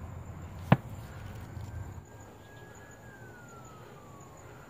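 Distant siren wailing slowly: one faint tone that rises, holds, then falls over about three seconds, and starts to rise again at the end. A single sharp knock, the loudest sound, comes just under a second in.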